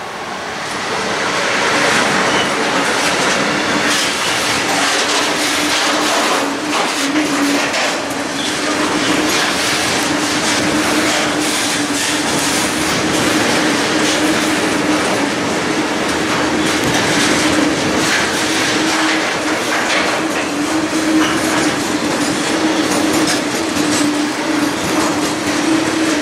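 Freight train of tank wagons rolling past close by behind a Newag Griffin locomotive. The noise swells over the first couple of seconds as the locomotive goes by, then the wagons go on with a steady rattle of wheels over the rails, irregular clicks and a steady whine underneath.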